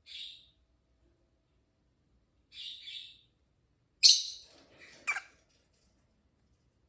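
Pet lovebirds making short kissing sounds: two soft ones in the first three seconds, then a louder, sharper one about four seconds in, followed by a quick chirp that drops in pitch.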